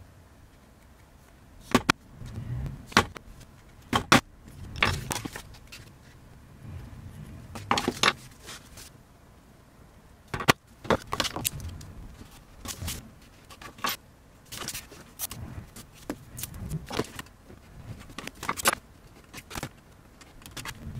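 Hand craft work on a cutting mat: irregular sharp clicks, taps and short scrapes from a craft knife, a ruler and a sheet of crinkly decorative film being handled and trimmed.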